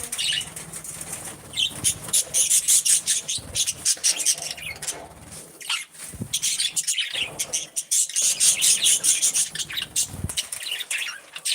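Pet budgies chirping and chattering in a dense, rapid stream of high calls, loudest in two stretches.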